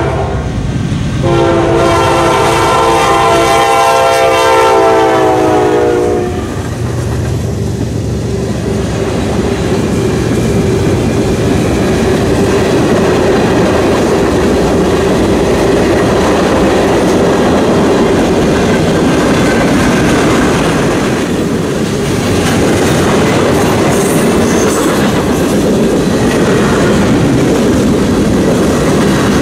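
Norfolk Southern freight locomotive's air horn sounding a chord, breaking briefly about a second in and then holding a long blast that drops in pitch as the locomotive passes, about six seconds in. After that comes the steady clatter and rumble of a long string of covered hopper cars rolling past on the rails.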